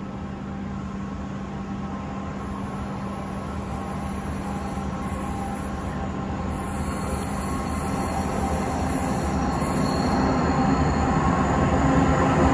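Freight train hauled by C class diesel-electric locomotives approaching, the engines' steady drone growing louder as the train nears.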